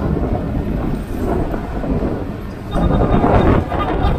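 Low, steady rumble of riding along in a motorcycle tricycle, its engine running under the noise of wind buffeting the microphone. The rumble grows louder about two-thirds of the way through.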